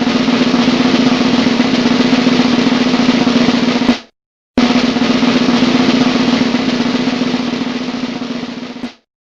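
Snare drum roll, played twice: the first cuts off sharply about four seconds in, and the second starts half a second later and dies away near the end.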